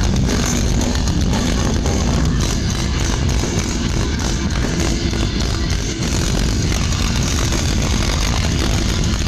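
Death metal band playing live at full volume, its distorted guitars and drums blurring into a dense, steady wall of sound.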